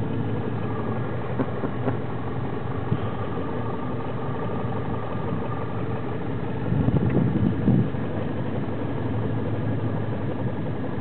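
Small boat's outboard motor running steadily at low speed. About seven seconds in, a louder rush of low noise lasts about a second.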